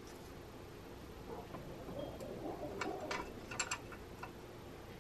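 A few light, irregular metallic clicks and taps, mostly in the second half, from a hand wrench working the nuts that hold the alternator onto its studs on a Norton Commando.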